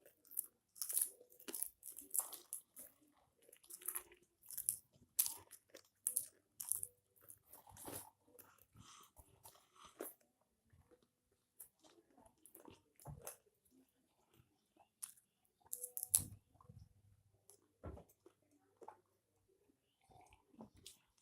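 Popcorn being crunched and chewed by mouth: many quick crunches, coming thick and fast in the first half and sparser later.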